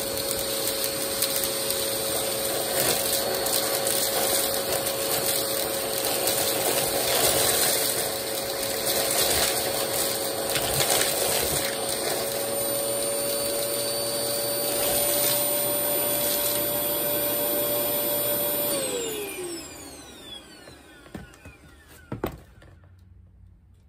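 Vacmaster vacuum cleaner running, its plastic wand sucking small buttons, coins and ring-pull tabs that clatter and crunch up the tube. Near the end the motor is switched off and its whine falls away as it spins down, followed by a single knock.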